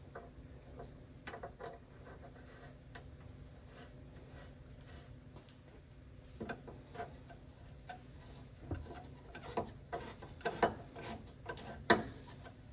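A screwdriver scraping and tapping metal on the Land Rover Series III's axle housing end flange, cleaning the face for a new gasket: short scrapes and clicks that come more often and louder in the second half, over a faint steady hum.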